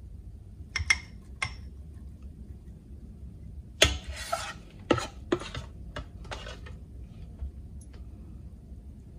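Metal spoon scraping thick speculoos spread out of a copper saucepan and knocking against the rim of a glass jar: a few sharp clinks, the loudest about four seconds in, followed by a short scrape.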